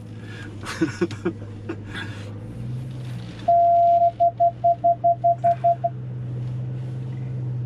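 Electronic warning chime in the cab of a Ram TRX pickup: one held beep, then about ten quick beeps at roughly four a second. Under it, the steady low hum of the truck's supercharged 6.2-litre V8 as it wades through water, the engine note stepping up slightly before the beeps.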